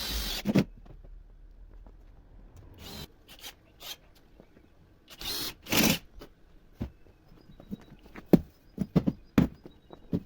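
Hand work on a refrigerator door: a few brief rubbing or scraping sounds and scattered sharp knocks and clicks, the loudest knock coming near the end.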